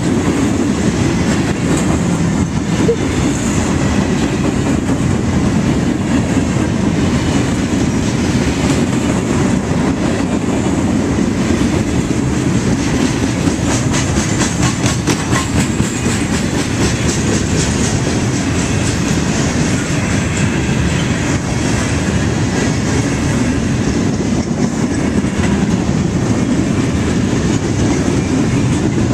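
Empty steel-hauling bulkhead flatcars of a freight train rolling past, a steady rumble of steel wheels on rail with clickety-clack over the rail joints. A run of sharper wheel clicks comes about halfway through.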